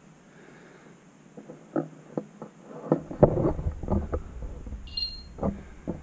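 Irregular footsteps and knocks, starting about a second and a half in and growing busier, with a low rumble of camera handling joining about halfway. A brief high chirp sounds near the end.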